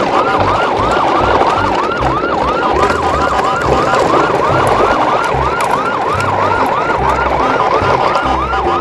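Electronic siren wailing in quick repeated sweeps, about three a second, over a low pulsing beat.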